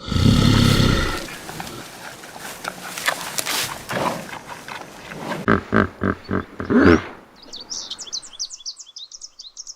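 Tiger roaring: a loud roar right at the start, then a quick series of short grunting roars a little over halfway through. Small birds chirp near the end.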